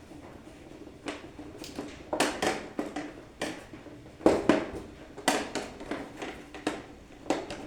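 Irregular clicks, taps and short scrapes of hands working electrical wire and tools while wiring a circuit, the loudest about four and five seconds in.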